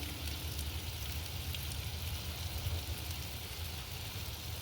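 Chicken thighs and potato chunks sizzling on a barbecue grill: a steady hiss with small crackles, over a steady low rumble.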